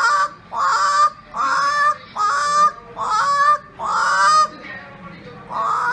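A woman imitating an animal or bird call with her voice: six short high calls, each sliding up in pitch as it starts, repeated about once a second, then a long held call near the end.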